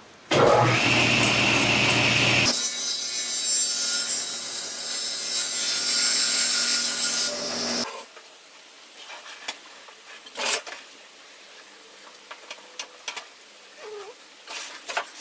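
Homemade table saw cutting through wood, then running on with its blade spinning free until the sound cuts off suddenly about eight seconds in. After that come soft knocks and clicks of wood pieces being handled on the saw table.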